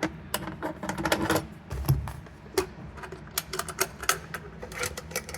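Irregular clicks and small knocks of a metal padlock and a wooden toolbox lid being handled, with a dull thump about two seconds in.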